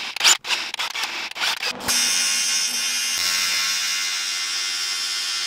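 A cordless drill boring into a metal bar in a few short, uneven bursts, then from about two seconds in a TIG welding arc buzzing and hissing steadily.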